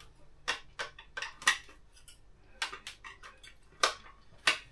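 A scattered run of sharp, light clicks and taps from small hard objects being handled, about ten in all at uneven intervals, the loudest about one and a half seconds in and twice near the end.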